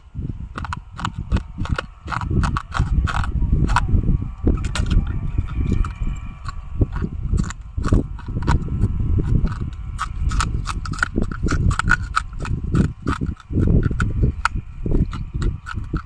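A man biting and chewing pieces of a broken brown glass bottle, a dense, irregular run of sharp crunches and cracks close to the microphone.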